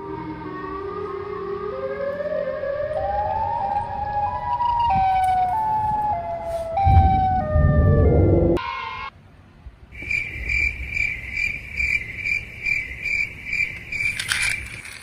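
Electronic siren sound effect: a wailing tone that climbs in steps, then a loud noisy burst about eight seconds in, followed by a quick run of high-pitched beeps, two to three a second.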